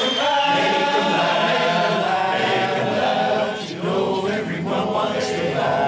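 Barbershop chorus singing a cappella in close harmony, holding long chords with a brief break about three and a half seconds in.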